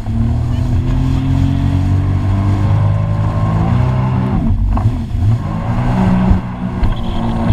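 Jet ski engine running under throttle, its pitch climbing slowly, then dipping briefly about four and a half seconds in before picking up again.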